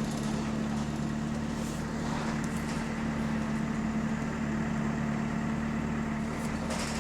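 Bus engine running steadily, heard from inside the passenger saloon: an even low drone with a steady hum, no revving.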